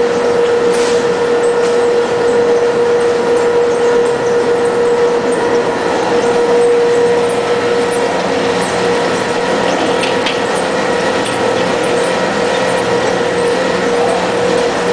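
Polystyrene recycling machine running: a steady, loud mechanical noise with a constant hum and a few light clicks.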